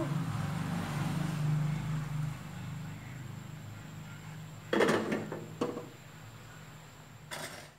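A low steady hum that fades after about two seconds, then two short clattering knocks a little after the middle and a faint one near the end, as the wok is shifted on the gas stove's grate.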